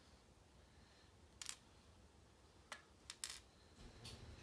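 A few light metallic clicks and taps from small pin-tumbler lock parts being handled: pins, springs and the core being worked out of the cylinder.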